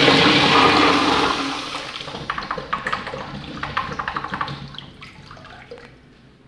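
Urinal flushing: a loud rush of water that tapers after about two seconds into gurgling and trickling in the trap, fading away near the end.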